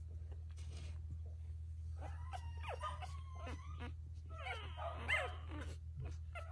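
Week-old F1B Cavapoo puppies squeaking and whimpering: two spells of thin, high, wavering squeals, the first about two seconds in and a louder one near the end, over a steady low hum.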